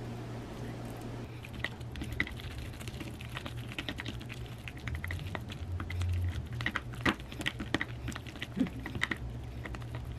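Wooden fork mashing avocado in a glass food container: rapid, irregular taps and clicks of the fork against the container, starting about a second in, over a low steady hum.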